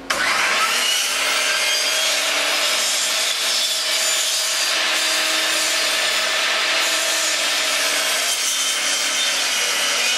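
Power tool working wood: a steady motor tone under a loud rasping hiss that starts abruptly and holds steady.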